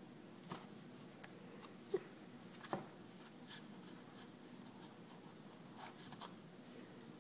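Faint scratching and scraping on a cardboard box: a few short scrapes and light taps as a plush toy mouse rubs against the box and a cat paws at it. The two loudest scrapes come about two and three seconds in.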